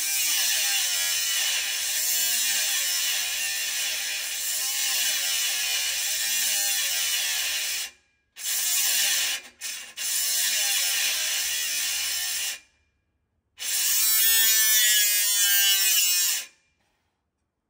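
Handheld power cutting tool cutting through an old exhaust clamp: a high, grinding whir with a wavering pitch that runs for about eight seconds, stops, then starts again in three shorter runs before stopping near the end.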